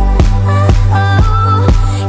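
Background music with a steady beat of about two beats a second and a heavy bass line.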